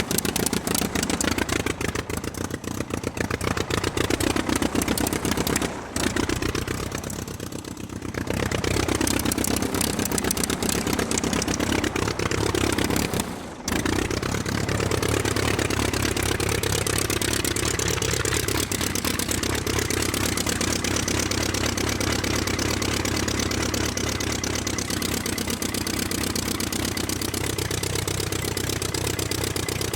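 Aircraft piston engine running, its speed wavering up and down. Its level drops briefly about six and about thirteen seconds in, and there is a longer lull in between.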